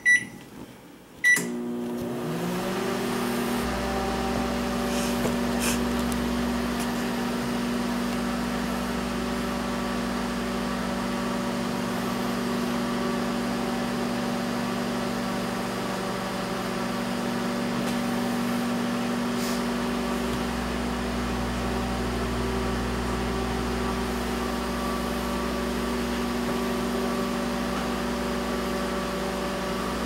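Sharp Carousel microwave oven: two keypad beeps as it is set, then about a second and a half in the oven starts and runs with a steady hum.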